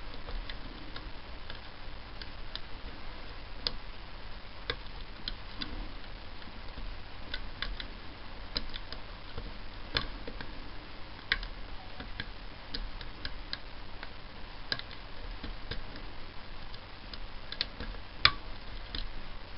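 Lock pick working the telescopic pin stacks of a Mul-T-Lock Basic dimple cylinder: small, irregular metallic clicks as pins are lifted and set, with one sharper click near the end. The telescopic pins and drivers keep giving false sets, so the picking goes on click by click.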